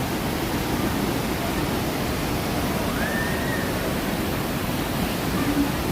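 Steady rush of falling and rushing water from the Grizzly River Run rapids and waterfalls, an even wash of noise with a faint short high tone about three seconds in.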